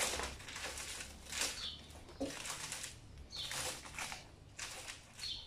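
Clear heat-shrink plastic film crinkling and rustling in irregular bursts as it is handled and pulled around a wooden board. A short high chirp sounds about every two seconds.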